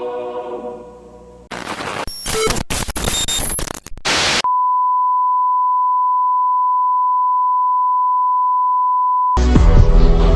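Music fades out, then about three seconds of harsh, crackling noise bursts give way to a steady, loud 1 kHz test tone held for about five seconds: the off-air tone of a broadcast signing off. Loud music with heavy bass cuts in abruptly near the end.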